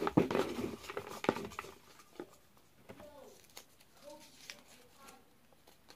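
Folded paper slips rustling and crinkling as a hand rummages in a bucket and unfolds one. Loudest in the first second and a half, then faint crackling.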